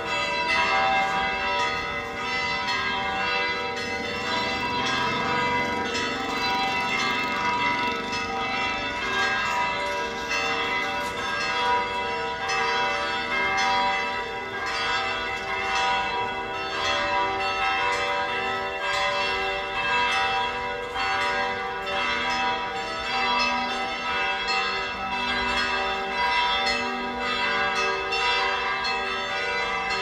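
Binondo Church's tower bells pealing, struck again and again in quick succession with their tones ringing on and overlapping, with no pause.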